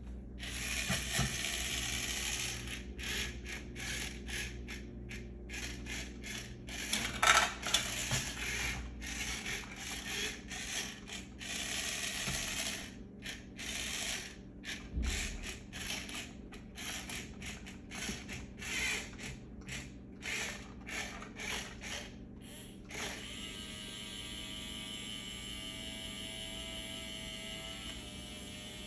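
Rokenbok RC Loader's small electric gear motors whirring in many short stop-start bursts as the toy is driven and loads balls. For the last several seconds the whir runs steadily.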